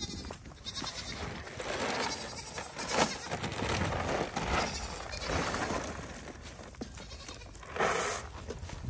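Goats bleating, several calls one after another.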